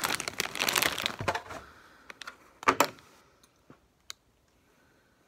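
A plastic Doritos chip bag crinkling as it is handled for about a second and a half, followed by a few sharp clicks and one loud crack a little under three seconds in, then only faint small clicks.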